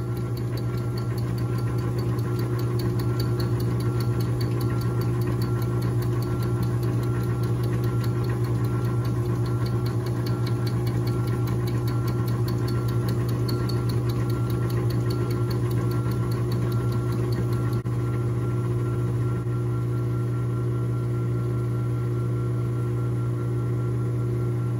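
Metal lathe running steadily with a fast, even ticking as an end mill held in the tool post takes an interrupted facing cut across a bolt head plugged into a 6061-T6 aluminum hub.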